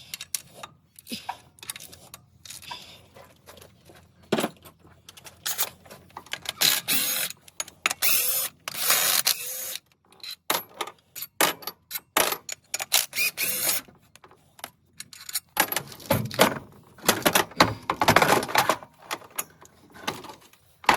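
Hand tools and metal parts clinking and clattering in irregular clicks and rattles, in denser bursts about a third of the way in and again near the end.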